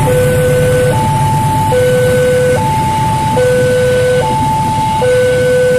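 Level-crossing warning alarm sounding an electronic two-tone signal, alternating between two pitches each held just under a second, over the low rumble of a freight train passing on the rails.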